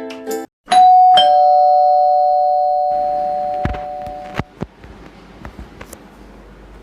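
Two-note doorbell chime, ding-dong: a higher note, then a lower one half a second later, both ringing on and fading over about three seconds. A few light clicks and taps follow.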